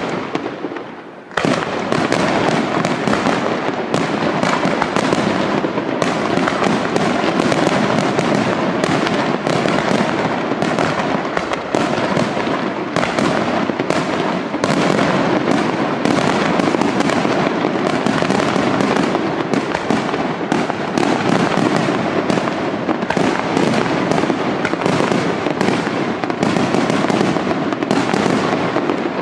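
Aerial fireworks display: a rapid, continuous barrage of shell bursts and crackle. It starts suddenly about a second in, after a brief lull.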